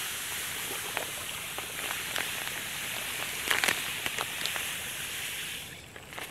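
Granulated cane sugar pouring from a plastic bag into a bucket of water and muscadine grapes: a steady hiss of grains hitting the water, with a few faint ticks, dying away near the end.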